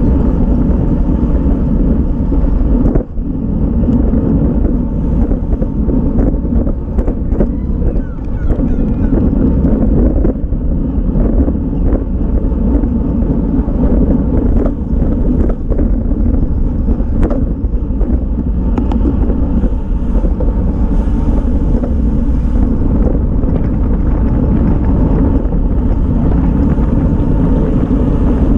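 Wind rushing over the microphone of a camera mounted on a racing road bike, with tyre and road noise underneath, at a steady 20 to 25 mph. Scattered short clicks and knocks run through it.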